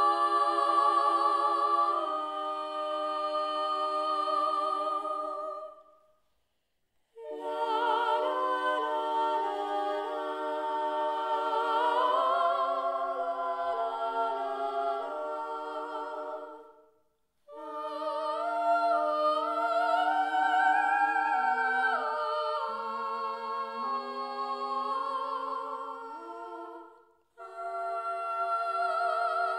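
Layered voices singing a cappella in close harmony: long, wordless held notes with vibrato, in phrases broken by three short pauses.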